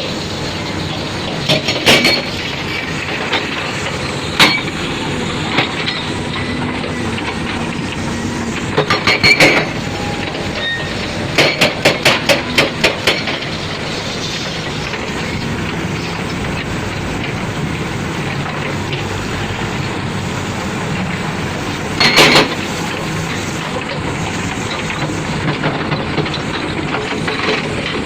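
Heavy construction machinery running steadily, with sharp knocks and clanks breaking in now and then, including a quick run of about six knocks near the middle and another burst near the end.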